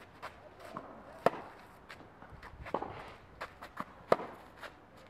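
Tennis ball struck by a racket: two sharp pops about three seconds apart, with a softer knock between them and light knocks and footsteps on the clay court.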